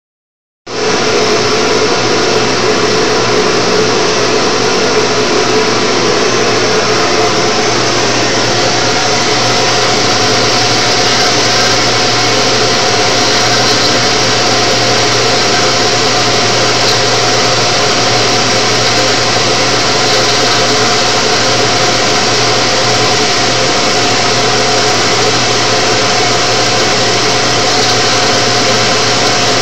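CNC router spindle running steadily as its bit engraves a pattern into a plexiglass sheet: an even, loud hiss with a low hum and a few held tones.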